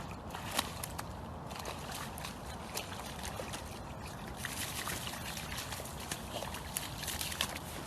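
Water sloshing and trickling, with many small splashes.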